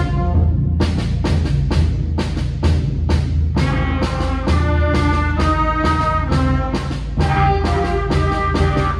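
School concert band playing: clarinets, alto saxophone and trumpets holding chords together over a drum keeping a steady beat.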